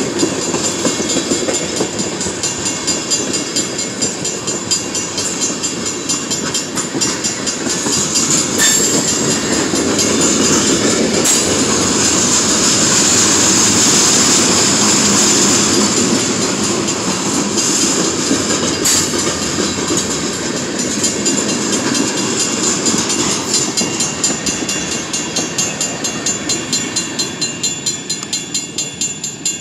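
Freight train cars rolling past a grade crossing, their wheels clacking steadily over the rails. It is loudest about halfway through, then thins to separate, evenly spaced clacks near the end as the last car goes by.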